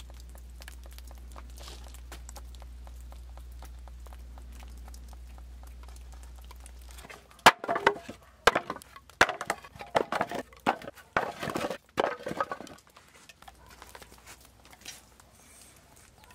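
Sawn firewood chunks and boards knocking and clattering against each other as they are handled and thrown onto a pile, a run of loud wooden knocks starting about halfway through. Before that, a low, steady rumble.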